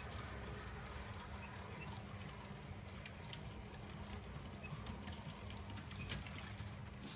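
Model railway train running on the layout: a steady low rumble with a constant hum from the locomotive's motor and wheels, and scattered light clicks as the wheels pass over rail joints.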